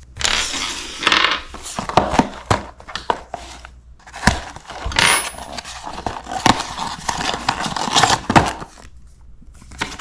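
Small paperboard box being torn open by hand: uneven bursts of ripping and crinkling cardboard with sharp clicks and rustles, dying down near the end.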